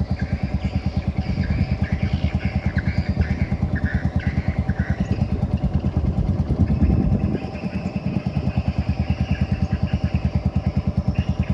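Small wooden canal boat's engine running steadily under way, with a fast, even putter.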